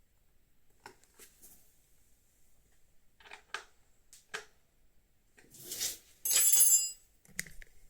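Hand tools and loose screws being handled while the motorcycle's front fairing is taken apart: scattered light clicks and taps, then, about six seconds in, a louder scraping rattle with a high metallic ring, and one more knock just after.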